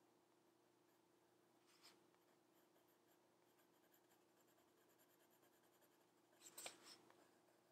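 Faint scratching of a colored pencil sketching on paper, a few scattered strokes with a louder flurry about six and a half seconds in.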